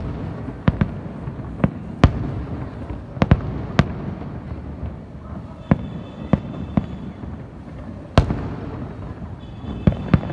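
Fireworks display: aerial shells bursting in a dozen or so sharp bangs at irregular intervals over a continuous low rumble of more distant bursts.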